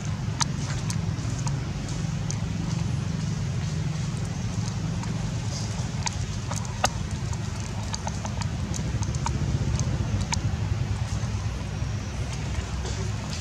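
Dry leaf litter crackling with scattered sharp clicks as macaques move about on it, over a steady low rumble.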